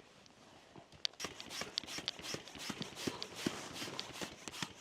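Manual air pump being worked to inflate a tent's PVC air beams: irregular clicking and crunching that starts about a second in.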